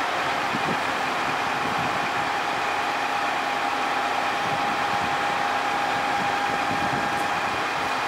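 Fire brigade turntable ladder truck running steadily: an even engine and hydraulic hum with a thin steady whine over it, as the ladder's rescue cage is being positioned.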